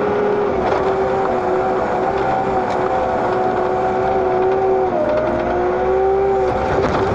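Diesel engine of heavy loading equipment running steadily under a constant drone, its pitch shifting briefly about five seconds in.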